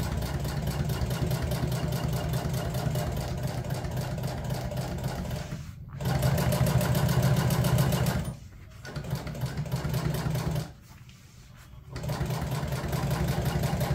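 Industrial flatbed sewing machine stitching two vinyl seat panels together, running in stretches with short stops about six, eight and a half and eleven seconds in. The stretch from about six to eight seconds is the loudest.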